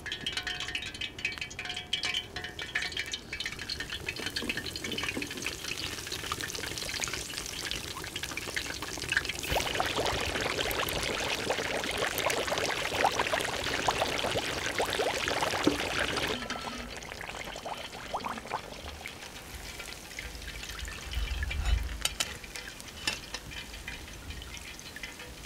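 Breaded chicken deep-frying in hot oil: a dense sizzle and crackle that swells about ten seconds in and eases off about six seconds later, with lighter bubbling either side and a dull knock near the end.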